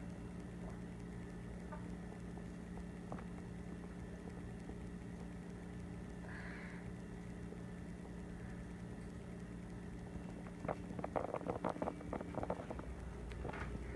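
Steady low room hum. Near the end comes a quick run of small crackling clicks as a toddler handles a small plastic cup in both hands.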